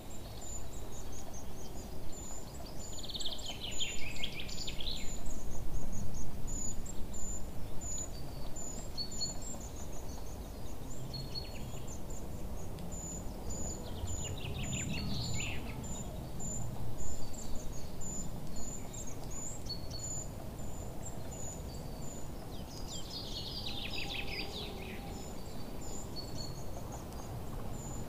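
Birds singing: short high chirps repeating about twice a second, with a few bursts of quick falling trills, over a steady low background noise.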